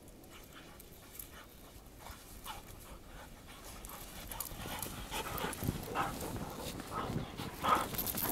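A dog panting hard in quick short breaths as it runs up through deep snow, the panting growing louder as it comes close, with its loudest moment near the end.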